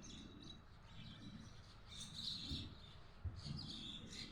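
Birds chirping in short clusters of high calls, about two seconds in and again near the end, over a faint low background rumble.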